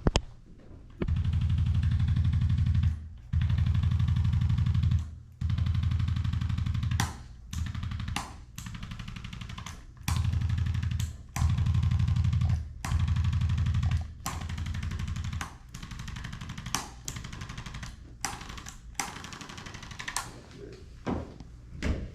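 Handheld electric percussion massager, the 'jackhammer', hammering rapidly in bursts of one to two seconds separated by short pauses, with sharp clicks in between.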